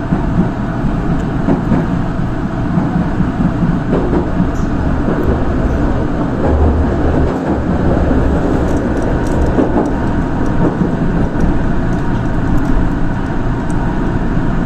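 Kita-Osaka Kyuko line train running, heard inside the carriage: a steady rumble of wheels and motors.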